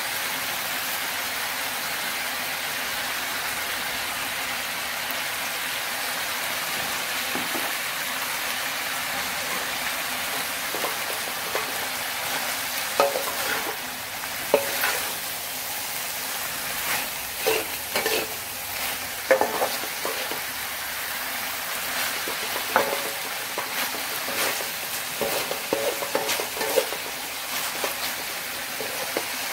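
Water spinach and chicken livers sizzling in an aluminium wok, a steady hiss. From about twelve seconds in, a metal spatula scrapes and clacks against the wok as the food is stir-fried.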